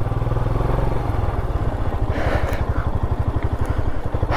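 Motorcycle engine running with a steady, even beat.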